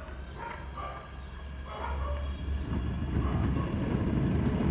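Propane blacksmith burner flame, a low rumble that grows louder from about two seconds in as the gas is turned up.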